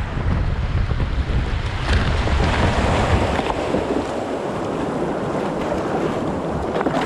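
Creek water rushing and splashing through a shallow rocky riffle around a kayak's bow, a steady noisy wash. Wind buffets the microphone with a low rumble for the first three seconds or so, then eases.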